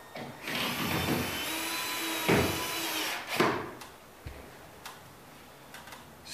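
Cordless drill driving a drywall screw through the ceiling sheetrock into the framing to tighten its loose edge: a steady motor whine for about three seconds, with two sharp knocks near its end.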